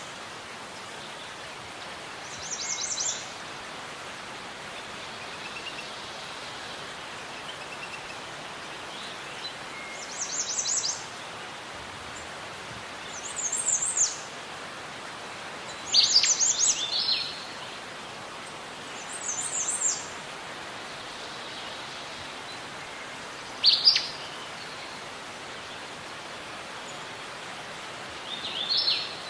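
Birds calling in short, high, falling chirp phrases, about seven of them spaced a few seconds apart, over a steady soft background hiss of outdoor ambience.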